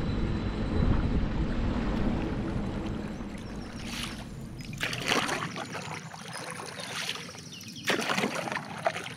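Canoe paddle strokes splashing in the water, several separate strokes in the second half, after a low rumble that fades away over the first few seconds.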